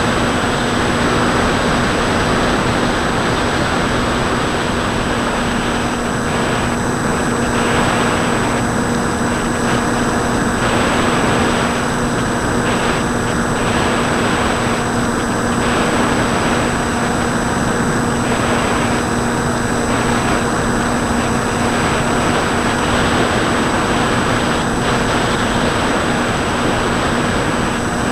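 Bixler 2 model plane's brushless electric motor (Turnigy D2826-10, 1400 kV) spinning an 8x5 pusher propeller in steady cruise, a constant hum with wind rushing over the onboard camera.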